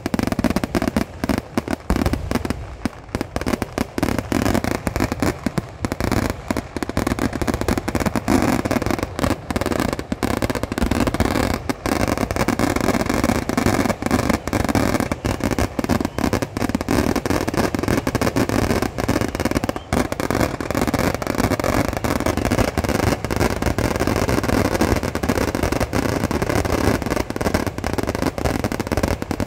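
Temple-festival fireworks (vedikettu) going off in a dense, unbroken barrage, the blasts coming many a second and running together.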